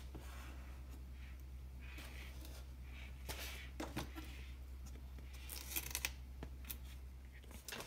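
Faint handling noises from a plastic-bottle model airplane and its foam wing being shifted in the hands: soft plastic crinkles and rustles with a few light knocks, over a steady low hum.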